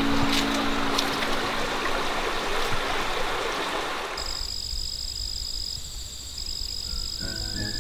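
Rushing stream water that fades out about four seconds in, giving way to a steady, high-pitched insect trill. A few notes of music come in near the end.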